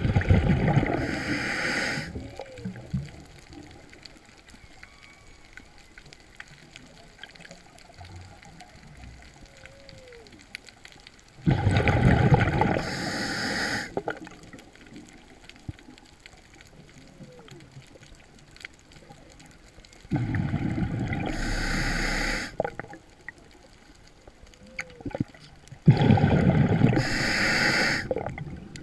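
A diver breathing through a scuba regulator underwater: four loud breaths, each a couple of seconds of hiss and bubbling. In the quiet gaps between breaths, faint humpback whale song can be heard as short swooping calls.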